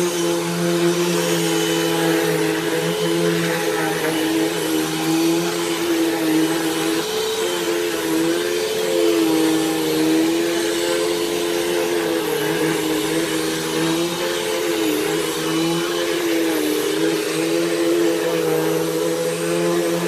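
Hoover Elite Rewind upright vacuum cleaner running while vacuuming a rug: a continuous motor whine with rushing air, its pitch wavering slightly.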